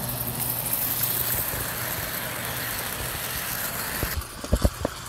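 Lionel O-gauge 4-4-2 steam locomotive running close past: a steady hissing whir of motor and gears that cuts off suddenly about four seconds in. A few sharp clicks follow, wheels clacking over the track joints.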